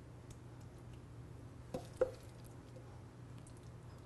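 Moist bread stuffing being spooned into a ceramic ramekin with a wooden spoon: faint soft squishing and two short knocks about two seconds in, over a low steady hum.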